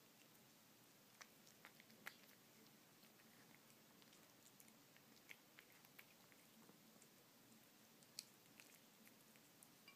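Domestic cat eating wet canned tuna from a plate: faint, irregular little clicks and smacks of chewing and licking, a few every second.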